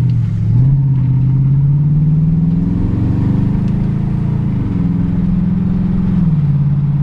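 2010 Chevrolet Camaro SS's 6.2-litre V8 with a Borla exhaust accelerating, heard from inside the cabin. The engine note climbs for a few seconds, then drops about four and a half seconds in and again near the end as the transmission shifts up.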